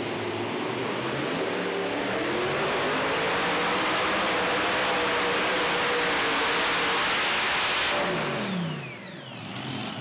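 Multi-engine modified pulling tractor running at full throttle under load as it pulls the sled, the engine note rising slightly a few seconds in. About eight seconds in the sound drops away and the engine pitch falls as the engines wind down.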